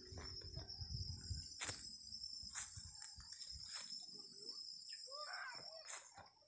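Faint, steady high-pitched trilling of insects, with scattered knocks and rustles and a few short chirps about five seconds in.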